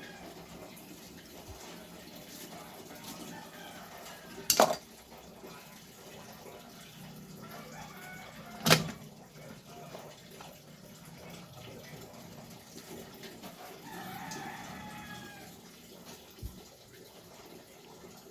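Quiet workshop background broken by two sharp clicks, about four seconds apart, from transmission parts being handled. A rooster crows faintly in the distance near the end.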